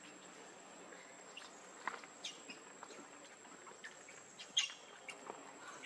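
Faint outdoor ambience: scattered short, sharp bird chirps over a steady high-pitched insect whine.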